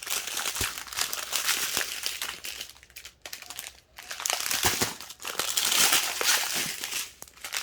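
Plastic packaging of diamond painting drills crinkling and rustling in irregular bursts as it is handled, with short lulls about three and four seconds in.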